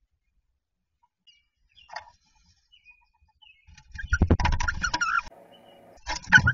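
Wood duck hens in a wooden nest box: a few faint short calls, then about four seconds in a loud burst of scuffling and knocking against the box, mixed with short high calls. A second burst starts near the end.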